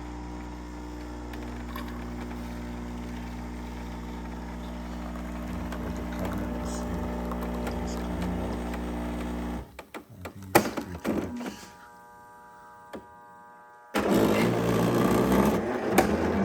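JURA Impressa S7 super-automatic espresso machine making a single espresso: a steady mechanical hum for about ten seconds, then a few seconds of clicks and clunks from the machine's internals, then a louder rattling buzz from about two seconds before the end as the shot is pumped through.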